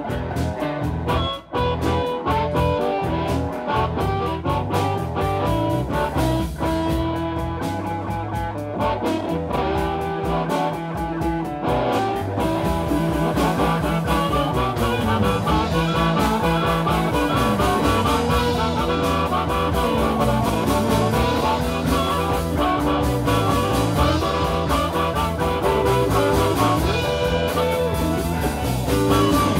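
Live blues band playing, led by guitar, over a steady bass line. In the middle the lead notes glide up and down in pitch.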